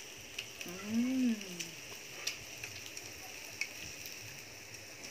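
A woman chewing a mouthful of grilled meat, with scattered sharp little mouth clicks. About a second in she gives a hummed 'mmm' that rises and then falls. A steady sizzling hiss runs underneath.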